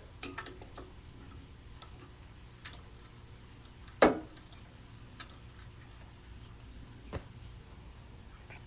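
A few scattered light metal clicks and knocks from tools and parts being handled, the loudest about four seconds in, over a faint low hum.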